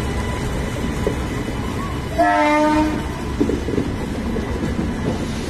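Passenger train coaches rolling past close by, a steady rumble with wheels clacking over the rail joints. A little past two seconds in, a short horn blast sounds for under a second.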